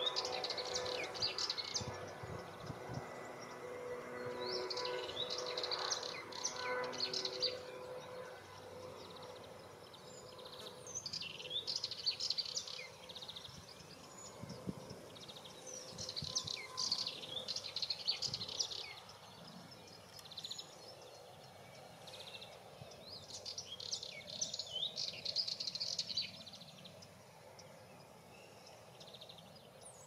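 Sardinian warbler singing: about six short bursts of rapid, scratchy chattering song, each lasting a second or two, separated by pauses of a few seconds.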